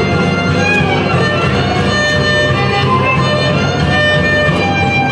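Violin-led traditional Mixtec dance music playing steadily, with a low accompaniment beneath the held melody notes.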